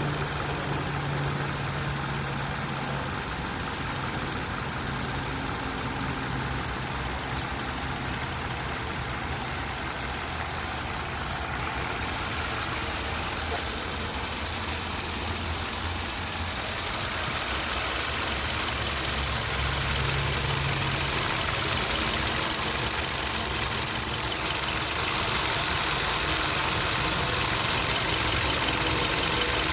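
Engine running steadily with a ticking noise.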